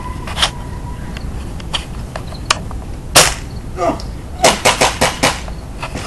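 Airsoft gun shots: scattered single sharp cracks, the loudest a little after three seconds in, then a quick run of about five shots near the end.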